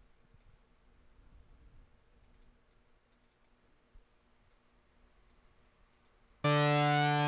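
Faint mouse clicks, then about six seconds in a loud hard-synced sawtooth synthesizer note starts, its upper overtones sweeping up and down as the automated tune of the synced second oscillator moves, giving the typical oscillator-sync sound.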